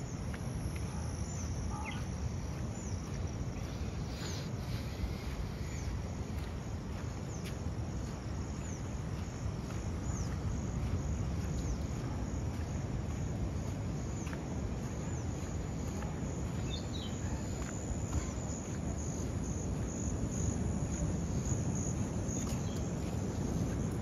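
Insects trilling steadily in the undergrowth, a high pulsing chorus that grows stronger in the second half, with short high bird chirps now and then over a steady low rumble.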